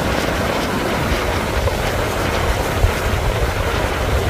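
Wind buffeting the microphone in a steady, gusting rumble, over the hiss of surf breaking on the shore.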